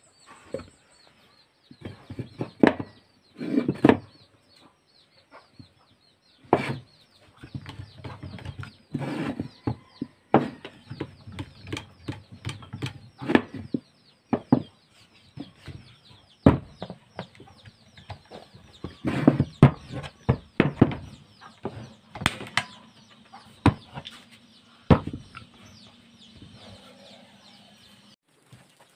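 Irregular clicks and knocks of hands handling a switched-off wood router, its cutter and a wooden gauge piece on a plywood workbench while the bit is being set up, with a few sharper knocks now and then.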